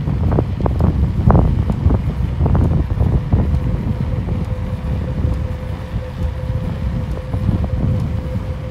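Wind buffeting the microphone of a vehicle moving along new asphalt, over a dense low rumble with scattered crackles. A faint steady hum joins in about halfway through.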